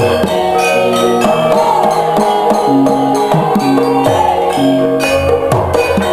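Traditional Indonesian dance music in gamelan style: struck metallophones ring out in layered, repeating notes over low drum strokes.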